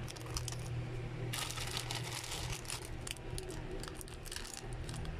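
Clear plastic packaging crinkling and rustling as it is handled, in a dense run of crackles about a second and a half in and scattered crackles after, over a low steady hum.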